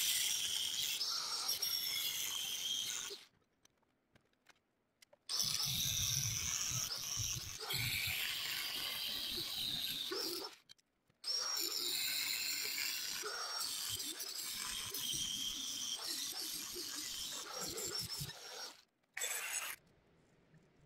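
Angle grinder with a cut-off wheel cutting through steel stock, a loud high whine that shifts in pitch as the wheel bites. It runs in three long cuts of about three, five and seven seconds, each stopping abruptly, then a short burst near the end.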